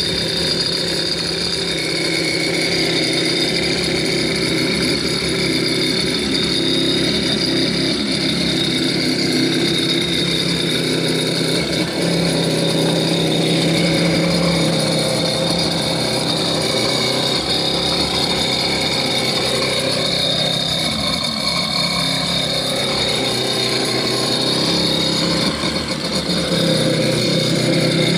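1987 Kawasaki X2 stand-up jet ski's two-stroke twin engine running steadily out of the water on its trailer, cooled by a garden hose.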